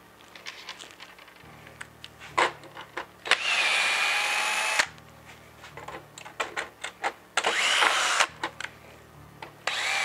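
Craftsman cordless drill driving bed-mount screws: two runs of motor whine of a second or so each, the pitch dropping briefly at the start of each, and a third run beginning at the end. Short clicks and taps of handling the screws and driver bit fall between the runs.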